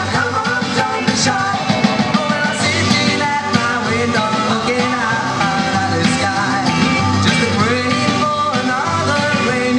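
Rock and roll song with a singer, playing continuously at a steady loud level.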